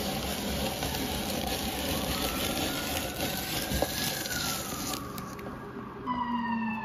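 Hand-cranked apple peeler-corer-spiralizer turning an apple, its blade scraping and shaving off the peel as it spiral-cuts the flesh. Near the end a siren starts wailing, its pitch falling.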